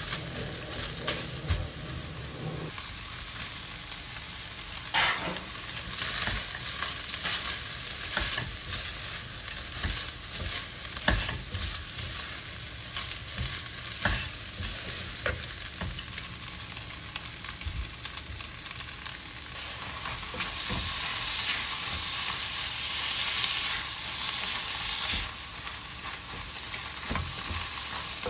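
Scrambled egg and sliced pork sizzling in a nonstick wok as a silicone spatula stirs and scrapes them, with frequent short scraping clicks over a steady hiss. The sizzle grows louder for a few seconds about twenty seconds in.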